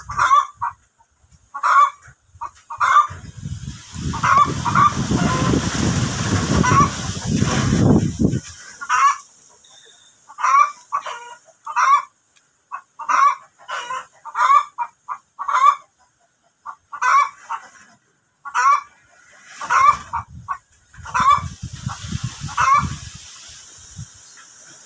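Chickens clucking in short, repeated calls. About four seconds in, a loud steady noise lasts about four seconds.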